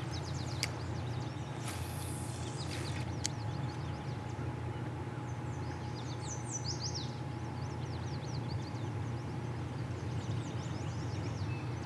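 Songbirds chirping and singing in quick short notes, densest about six to seven seconds in and again near the end, over a steady low background rumble, with a short hiss about two seconds in.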